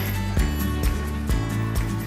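Background music with a steady beat, about two beats a second over a sustained bass line.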